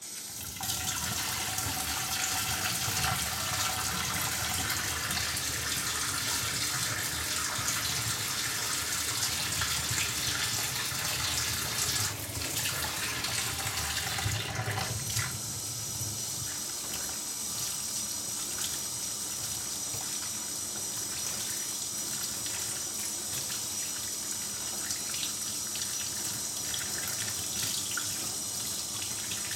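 Kitchen faucet running steadily into a stainless steel sink, the stream splashing over a wet guinea pig held under it. About halfway through, the water's sound changes and turns hissier.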